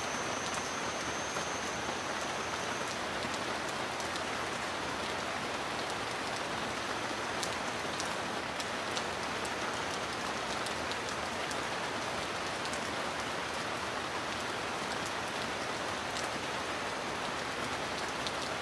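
Steady heavy rain: an even, unbroken hiss with scattered sharp drop ticks.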